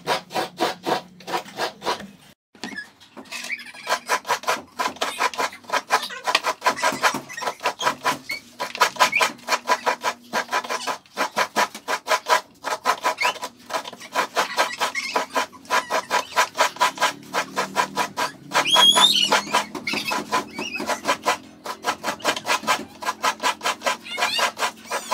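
Half a coconut scraped hard against a kudkuran, a stool-mounted serrated coconut grater, each stroke a rasp at about three or four a second, shredding the white flesh for coconut milk.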